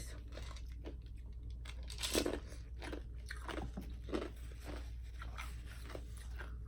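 Ice being crunched and chewed in the mouth: a string of irregular crunches, the loudest about two seconds in.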